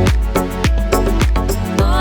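Upbeat background music with a steady dance beat: a heavy bass kick about three times a second under sustained synth tones.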